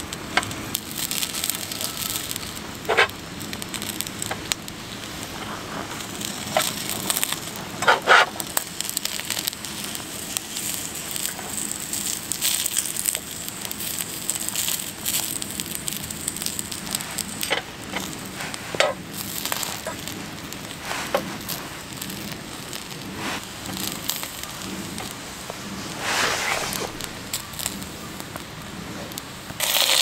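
Dry wood crackling and snapping, with irregular sharp cracks and a few louder snaps, as from a campfire or kindling being broken for it.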